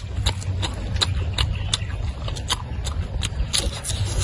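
Close-up crunchy chewing of pork belly: sharp, irregular crackles about three times a second as the crisp meat is bitten and chewed.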